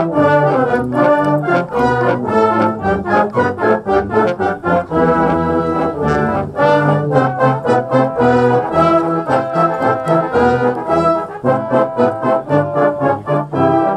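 Brass band (a silver band) playing a tune: low tubas and euphoniums under higher brass, with short notes that change quickly and keep a steady beat.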